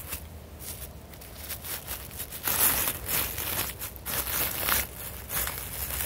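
Plastic wrapping on an air-layered root ball crinkling and tearing as a knife cuts it away, in a run of rustling, crackling bursts that start about two seconds in.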